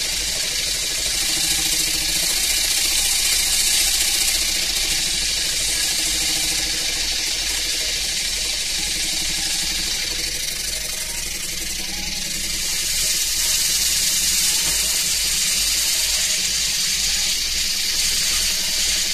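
Stuart S50 single-cylinder model mill engine running on compressed air fed from a hand-held air gun: a loud, steady hiss of air over a fast, even beat from the engine. The sound eases off a little about two-thirds of the way through, then picks up again.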